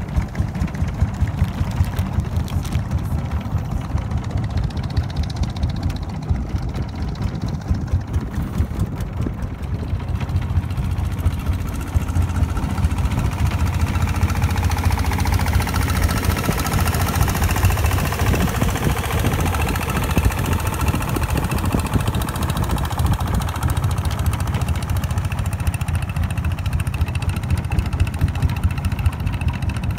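Long-tail boat's inboard engine running with a fast, even low thumping. About twelve seconds in, it grows louder and steadier as the boat gets under way, and the rush of water and wind rises with it.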